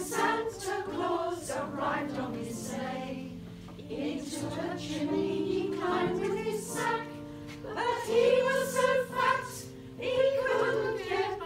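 Women's choir singing in several parts, holding notes that swell and fade phrase by phrase.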